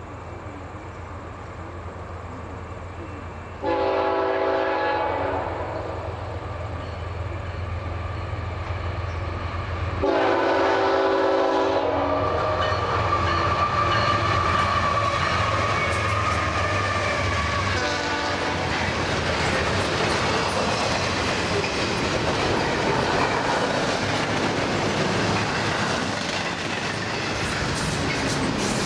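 Freight train's diesel locomotives approaching with their engines droning, sounding the air horn: a long blast about 4 seconds in, another about 10 seconds in and a short one around 18 seconds in. The locomotives then go by, followed by the steady clickety-clack and rumble of double-stack container well cars rolling past.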